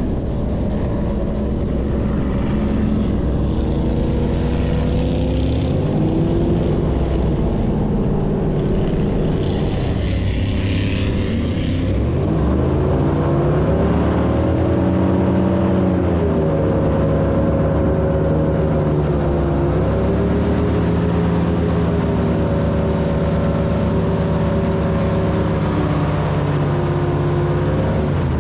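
Airboat engine and air propeller running under way, loud and continuous, its note rising and falling as the throttle changes, dropping low about ten seconds in and climbing again a few seconds later.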